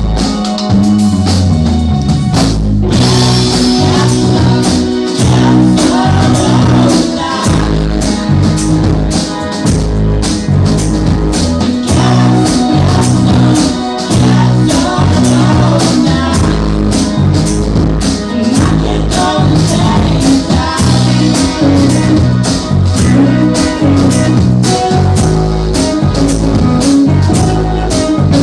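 Indie pop band playing live: drum kit keeping a fast steady beat under bass and electric guitars, with singing.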